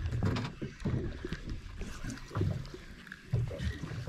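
Small waves lapping and slapping irregularly against the hull of a small boat.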